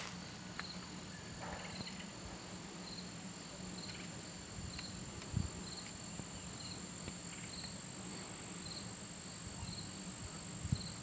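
Insects chirping: a short pulsed chirp repeating evenly about every two-thirds of a second over a steady faint high whine, with one soft low thump about halfway through.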